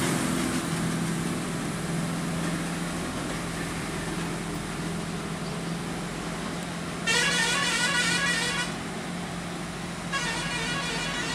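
A vehicle horn sounding a warbling, pulsing multi-tone blast for about a second and a half, about seven seconds in, and starting again near the end, over the steady hum of a lorry's diesel engine pulling away on a ghat road.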